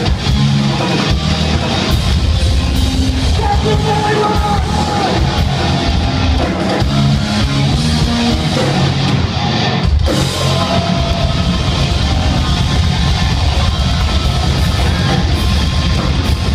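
Live hard rock band playing loud and continuously: electric guitars, bass and drum kit.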